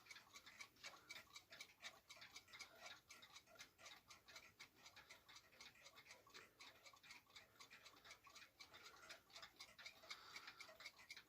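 Faint ticking of several mechanical clocks at once, their beats overlapping out of step with one another.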